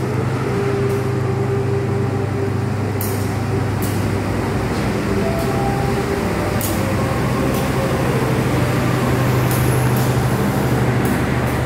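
Diesel engine of a stationary KAI passenger train running at idle: a steady low hum, with a few short light clicks over it.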